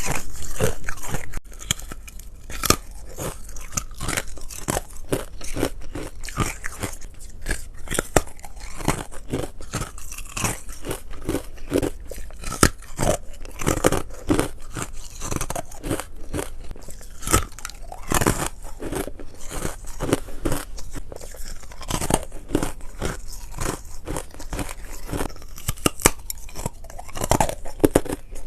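Ice being bitten and chewed, close up: a continuous run of sharp, irregular crunches and crackles.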